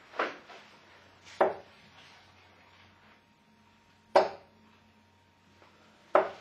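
Steel-tip darts striking a bristle dartboard: short, sharp thuds spaced one to three seconds apart, four in all, with a softer knock right at the start.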